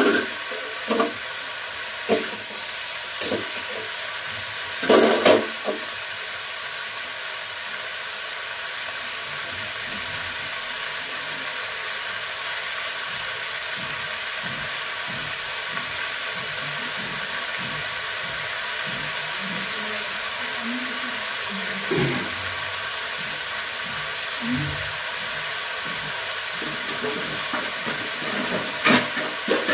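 Chopped onion and tomato sizzling steadily in oil in an iron kadhai. There are a few sharp knocks against the pan in the first six seconds and again near the end.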